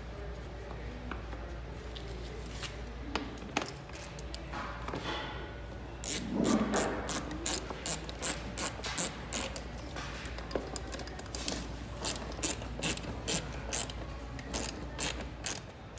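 Hand socket ratchet clicking as a bolt is turned in, in quick runs of sharp clicks that start about six seconds in, with quieter handling noise before.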